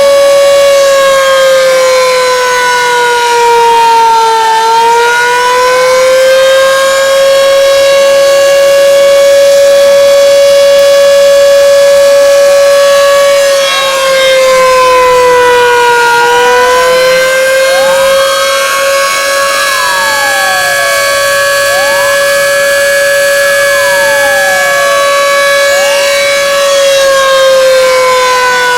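The Plengkung Gading siren at the Yogyakarta Kraton sounding one long, very loud wail, the commemorative signal for the moment of Indonesia's Proclamation of Independence. Its pitch holds steady, sagging briefly and climbing back about every twelve seconds. Fainter rising and falling tones cross it.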